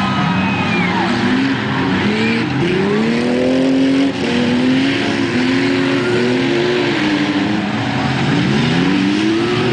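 Engines of several junk cars racing on a short dirt track, overlapping, their pitch rising and falling again and again as the drivers accelerate and back off.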